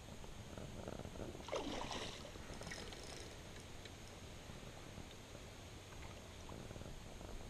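Shallow river water splashing and sloshing briefly about one and a half seconds in, over a steady low rumble of wind and handling.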